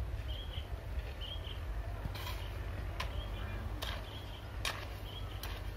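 A hand hoe chops into soil from about two seconds in, with sharp strikes roughly once a second. A bird repeats a short high call about once a second, over a low wind rumble on the microphone.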